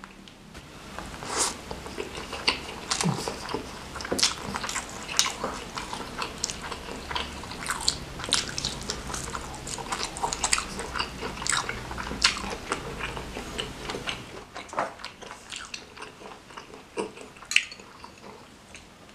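Close-miked mouth sounds of a person chewing a hand-fed mouthful of nasi padang rice with sauce: many quick wet clicks and lip smacks. They come thickly for most of the time and thin out in the last few seconds.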